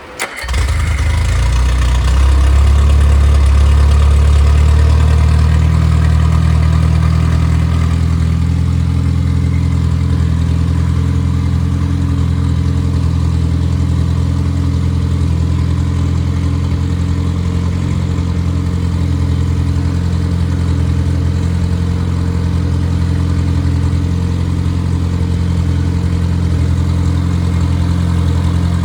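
Freshly rebuilt MG Midget/Triumph Spitfire 1500 four-cylinder engine, built with a performance cam, starting right at the beginning and catching at once. It runs a little faster for the first few seconds, then settles to a steady idle.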